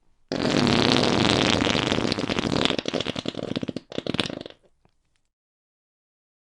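Fart sound effect: one long, loud fart of about three and a half seconds that breaks into a rapid sputter toward its end, then a short last burst after a brief pause.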